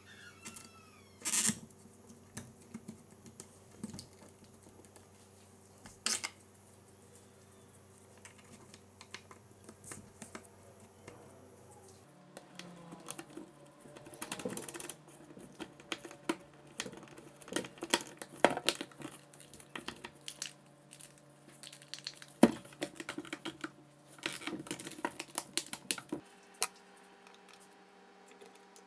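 Plastic housing and small parts of a cordless drill being handled and fitted together by hand: scattered light clicks and knocks, busier through the middle stretch.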